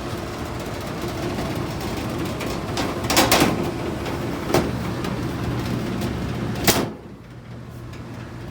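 Old Carrier furnace's blower running with a steady low hum, with knocks and clatter from handling. A sharp bang near the end is followed by the running noise turning quieter and more muffled, as when a door or access panel is shut.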